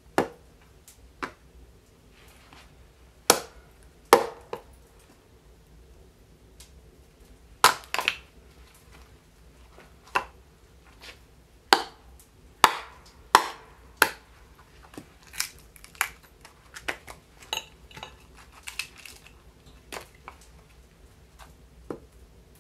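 Axe striking wood on a chopping block, splitting firewood: a string of sharp, irregularly spaced chops and cracks, with lighter, quicker knocks in the later part.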